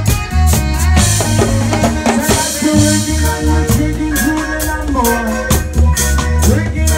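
Live reggae band playing: a heavy bass line under a drum kit keeping steady hi-hat ticks, with a cymbal wash from about a second in.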